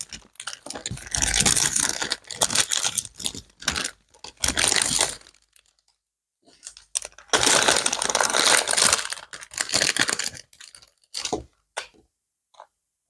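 Kit packaging being handled and torn open, rustling and crinkling in several bursts, falling quiet near the end.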